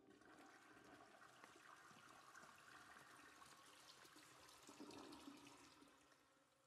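Faint running, trickling water that swells a little about five seconds in and then fades away.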